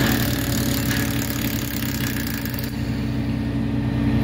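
An engine idling steadily, with a hiss over it that stops about two and a half seconds in.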